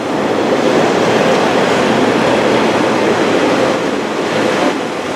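Class 143 Pacer diesel multiple unit moving along the platform, a steady noise of engine and wheels that swells slightly just after the start and eases a little near the end.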